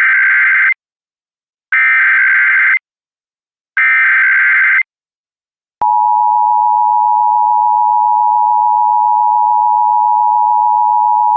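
Emergency Alert System SAME header: three short bursts of warbling digital data tones about two seconds apart, marking the start of an emergency alert. About six seconds in, the steady two-tone EAS attention signal begins and holds.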